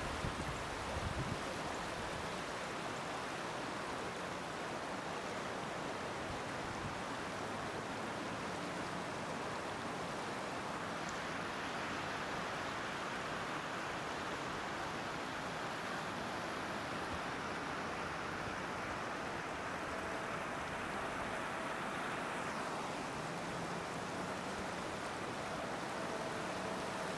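Flooded river rushing fast over a submerged riverside walkway, a steady, even noise of flowing water. There are a few soft low bumps about a second in, and a faint hum joins the water sound in the last several seconds.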